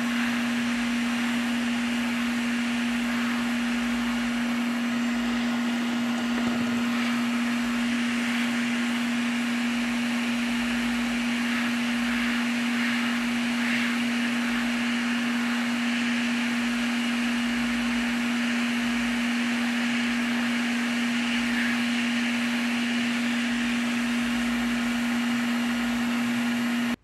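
A small electric fan or blower motor running steadily, with a constant low hum and an airy hiss.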